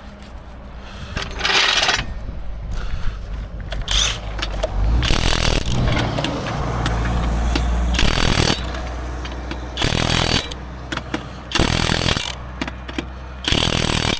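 Impact wrench running lug nuts in short bursts, about seven times, over a low steady engine hum.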